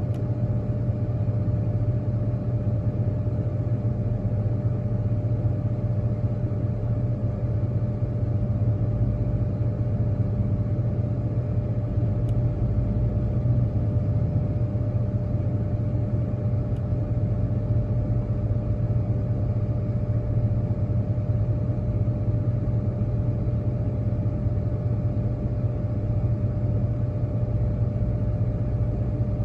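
Diesel-electric locomotives running at low throttle as they creep along the track: a steady low rumble with a faint steady hum above it.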